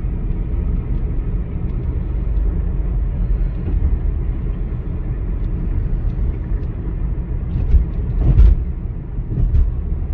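Car driving along a road: a steady low rumble of engine and road noise, with a short, louder noise about eight seconds in.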